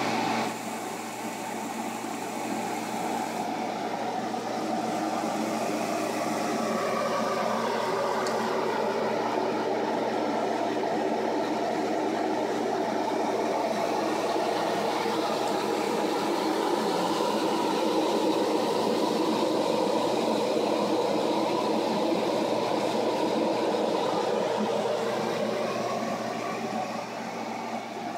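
Over-stove range hood exhaust fan running steadily with a whir and a low hum. The fan is blowing steam down over the stove instead of drawing it up, which the owner takes for a fan wired backwards.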